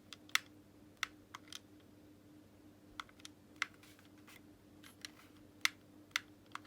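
Xbox One controller buttons clicking as they are pressed in quick, irregular succession, about a dozen sharp clicks, over a faint steady hum.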